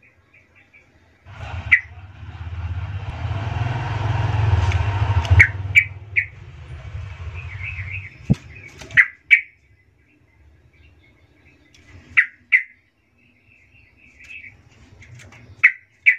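Bulbul (trucukan) giving short bright chirps, about ten spread across the stretch, some in quick pairs. A rumbling noise swells and fades through the first half.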